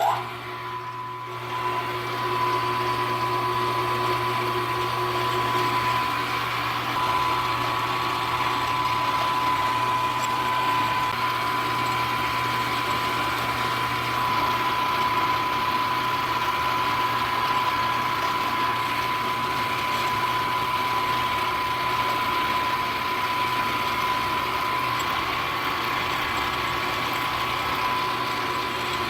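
Milling machine running at about 1100 RPM with a solid carbide end mill cutting the workpiece: a steady hum under a steady high whine, louder from about two seconds in.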